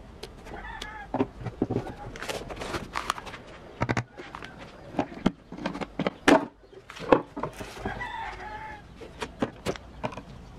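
Sharp knocks, clicks and clatter from handling a particleboard speaker cabinet and a screwdriver, the loudest knocks a little past the middle. A chicken calls in the background twice, once near the start and again about three quarters through.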